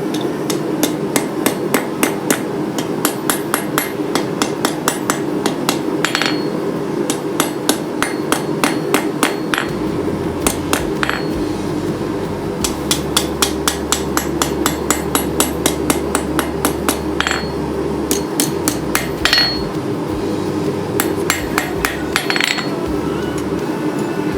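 Hand hammer forging hot steel on an anvil: quick, even blows at about four a second, in runs broken by short pauses, with a few louder ringing strikes. A steady hum runs underneath.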